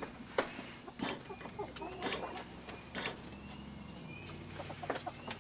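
Scattered clicks and knocks of hands working parts inside the bare metal door shell of a 1991 Ford F-150, with birds calling faintly in the background.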